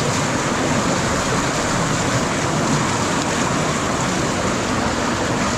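Floodwater rushing and churning fast through a concrete channel, a steady loud rush of water.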